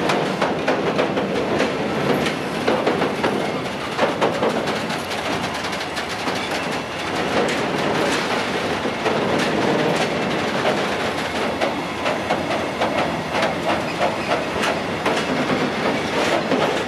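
Loaded freight train of covered sliding-wall wagons rolling past: a steady clatter of wheels over rail joints, with many rapid clicks, and the heavy wagons creaking and groaning under their load.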